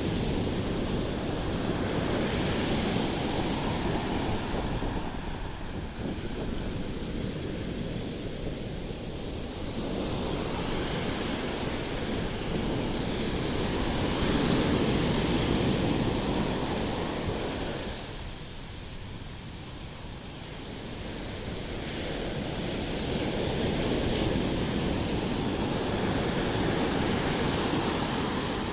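Sea waves surging and washing onto the beach, swelling and fading over several seconds at a time, with wind on the microphone.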